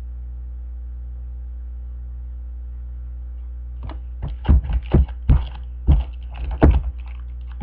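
A steady electrical hum, then from about four seconds in a quick, irregular run of clicks and rustles from trading cards and packs being handled close to the microphone.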